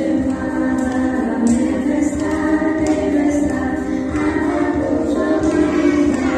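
Music with a choir of voices singing.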